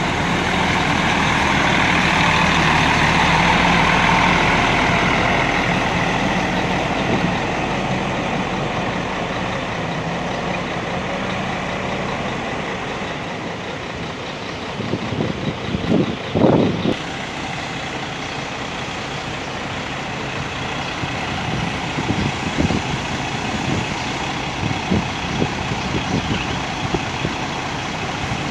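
Mercedes-Benz diesel bus engine running. It swells to a peak a few seconds in and then fades as the bus moves off, leaving a steady engine sound. A cluster of short knocks comes about halfway through, and a few more near the end.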